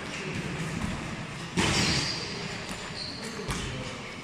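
Boxing gloves thudding during a sparring exchange, with footwork on the ring canvas, echoing in a large hall. The loudest hit comes about one and a half seconds in, with a smaller thump near the end.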